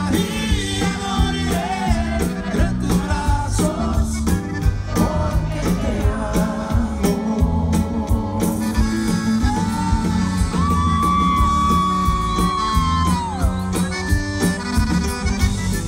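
Live Tejano norteño band music, loud: a man singing over bass, drums, guitars and accordion. About ten seconds in, a long steady note is held for several seconds and falls away at the end.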